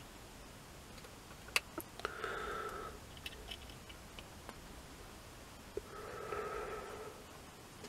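Quiet handling of test leads: a few small clicks as the clips are fastened to the choke's terminals, and twice a soft breath-like rush of about a second.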